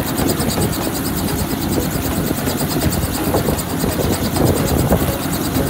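Small helicopter running on the ground with its main rotor turning, giving a steady, rapid, even chop.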